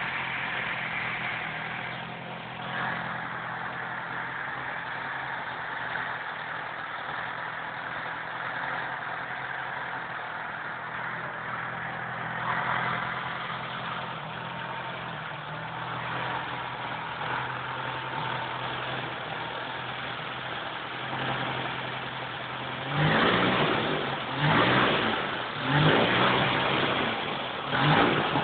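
Coventry Climax Godiva water-cooled four-cylinder side-valve engine, about 850 cc, running at a steady speed. Near the end it is revved in about four quick surges, roughly a second and a half apart.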